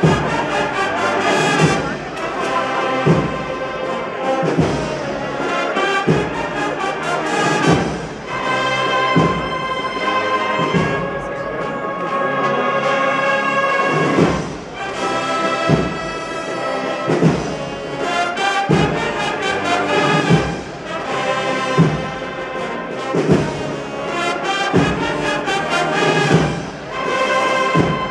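Processional brass band (an agrupación musical) playing a slow march: held brass notes over a steady drum stroke about every second and a half.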